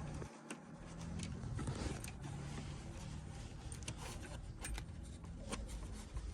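Faint handling noise with scattered small clicks, from plastic washers and armrest mounting parts being fitted by hand.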